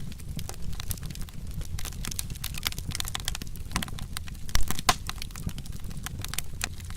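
Wood fire crackling and popping irregularly over a steady low rumble, with a louder pop about four and a half seconds in.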